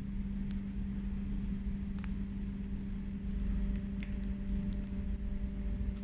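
Steady mechanical hum with a low rumble underneath, broken by a few faint ticks.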